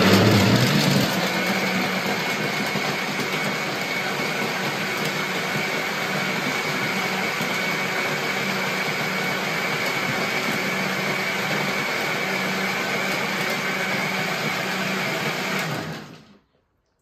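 Countertop electric blender running on a jug of fruit juice. It spins up with a short rise in pitch, settles into a steady whirr with a thin high whine, and cuts off about a second before the end as it is switched off.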